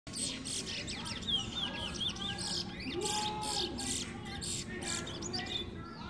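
Caged songbird, a 'brown bird' kept for its song, singing a quick, varied string of chirps and sliding notes.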